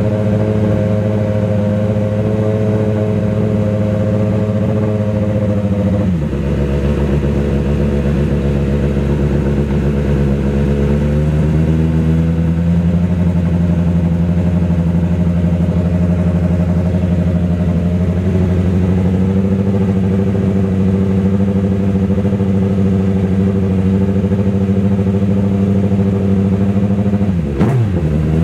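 Nissan GT-R GT500 race car's 4.5-litre V8 running at a loud, steady idle. About six seconds in the idle note drops lower, then climbs slightly and settles from around twelve seconds. Near the end the revs dip sharply and come straight back.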